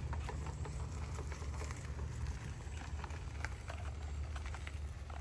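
Scattered crunches and light clicks on a gravel lane, over a steady low rumble.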